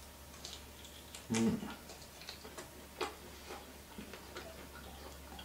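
A man chewing a bite of smoked beef bacon: soft, scattered mouth clicks and smacks, with a short hummed "mm" about a second and a half in.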